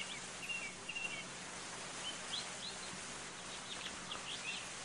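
Faint outdoor ambience of small birds chirping: short high chirps and brief whistled notes, scattered irregularly over a steady low hiss.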